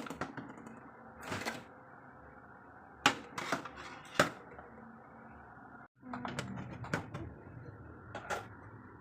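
Scattered sharp clicks and knocks of kitchen utensils being handled, about eight in all, over a steady low background hum.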